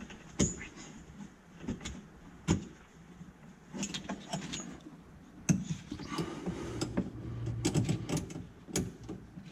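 Scattered metallic clicks and knocks as a nut and wrench are worked onto the top mount of a Club Car golf cart's rear shock absorber. The clicks come closer together in the last few seconds.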